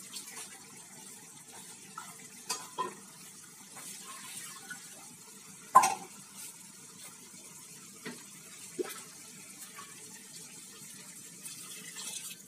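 Chana dal curry with potato and pointed gourd simmering in a metal pan, with scattered pops and knocks; the loudest comes about six seconds in. Near the end, water is poured into the pan to thin the gravy.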